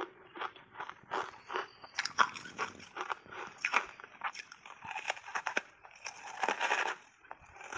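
Close-miked biting and chewing of a block of purple reshaped ice coated in matcha powder: a rapid string of sharp, brittle crunches, thickest about two seconds in and again near the end.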